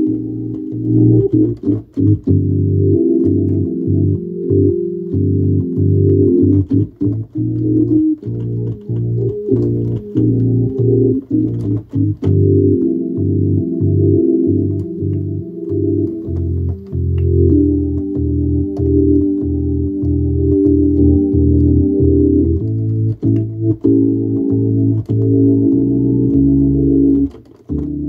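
Hammond organ played live: held chords in the middle register changing every second or so over a low bass line, with short sharp clicks at many of the note attacks. The playing dips briefly near the end before carrying on.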